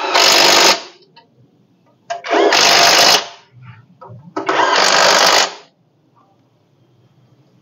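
Power tool run in three short bursts of about a second each, tightening bolts.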